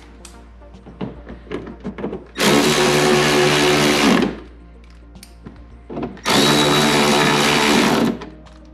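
Milwaukee cordless ratchet running in two bursts of about two seconds each, driving 10 mm bolts into the front bumper and fender liner; each burst is a steady motor whine that cuts off when the bolt seats.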